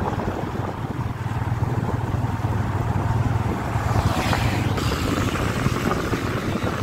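Yamaha FZ25 motorcycle's single-cylinder engine running at a steady cruise, with wind on the microphone. About four seconds in, a bus passes close alongside and adds a brief rush.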